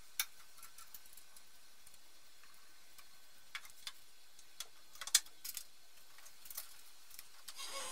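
Scattered light metal clicks and clinks from a car's bonnet hinge and its bolts being handled and fastened with a hand tool, the loudest click about five seconds in.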